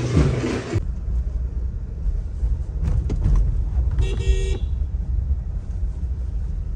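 Car driving at night heard from inside the cabin: a steady low rumble of engine and road noise, with one short car-horn toot about four seconds in. Music cuts off under a second in.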